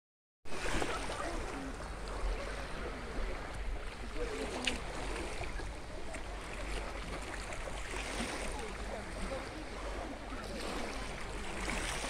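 Small, gentle waves of the Azov Sea lapping and washing in near-calm water, a soft steady wash under a constant low rumble.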